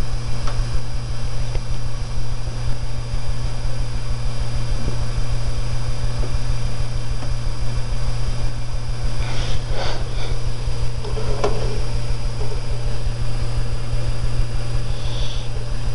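Steady low hum with an even hiss underneath, like a fan or electrical background noise, running without change.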